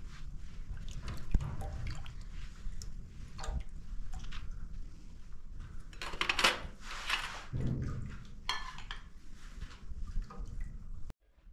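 Metal ladle scooping boiled food from a steel pot and tipping it into small metal bowls: scattered clinks and scrapes of metal on metal, with soft wet slops of food.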